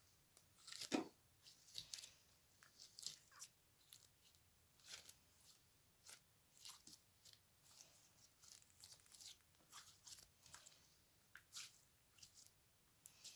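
Slime being squeezed and pressed by hand, giving soft, irregular crackles and pops, the loudest about a second in.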